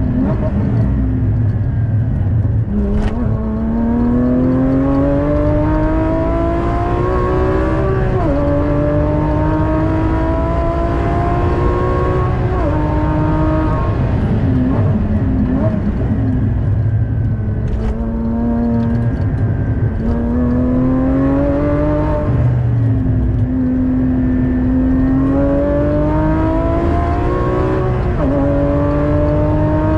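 Porsche Cayman GT4's flat-six engine heard from inside the cabin at full track pace, its pitch climbing steadily under acceleration and dropping sharply at each upshift of the manual gearbox. About halfway through it comes off the throttle under braking, with downshifts, before pulling hard through the gears again.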